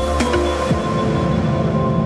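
Background music: a few drum hits in the first second, then held chords.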